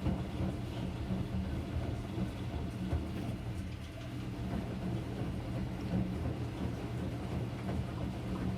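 Enxuta Soft Luxo washing machine running: a steady low motor hum and rumble.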